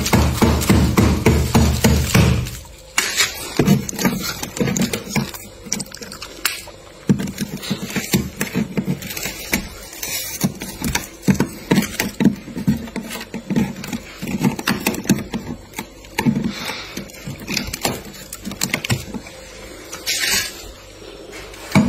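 Thick freezer frost being hacked and scraped: a fast run of hard knocks for about the first two and a half seconds, then irregular crunching and crackling of frost and ice bits.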